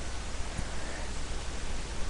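Steady hiss and low hum of a cheap webcam microphone's background noise, with one faint click about half a second in.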